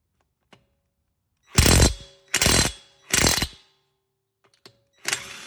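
Impact wrench hammering on a 21mm lug nut in four short bursts of about half a second each, three close together about a second and a half in and one more near the end.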